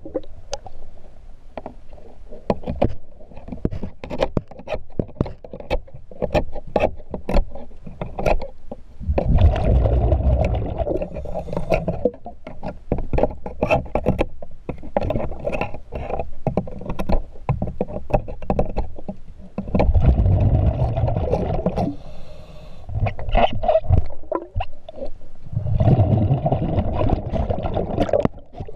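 Underwater close to a boat hull: sharp clicks and scrapes of hands and tools working against the hull during a zinc anode change, broken three times by a loud rumbling rush of exhaled diver's bubbles, each lasting about two seconds, about a third of the way in, about two-thirds in, and near the end.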